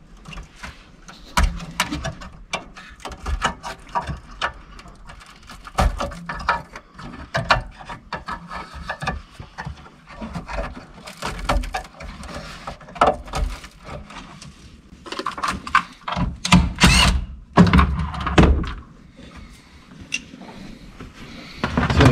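Scattered clicks, knocks and rattles of hands unplugging connectors and lifting out the hybrid-system ECUs from a Honda Insight's IMA battery compartment, with a louder, denser run of rattling clicks about three quarters of the way through.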